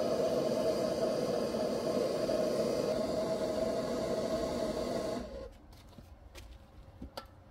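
Steady rushing hiss of a heating tool warming the steel gear actuator shaft before it is welded. It cuts off about five seconds in, followed by a couple of faint clicks.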